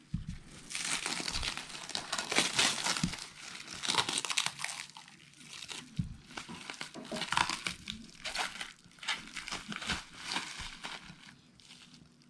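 Crinkling and rustling of something being handled, in irregular bursts, with a few short soft knocks.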